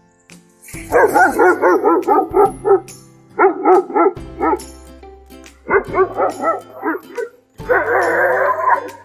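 German Shepherd barking in quick runs of short, high barks, several a second, with a denser run of barking near the end.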